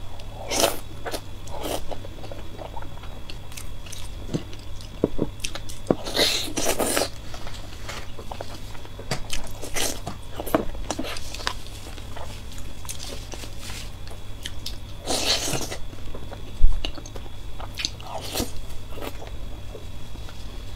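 Close-miked eating of soft pig brains in chili sauce: irregular wet biting and chewing noises, with a few longer noisy bursts. A single sudden low thump comes about 17 seconds in.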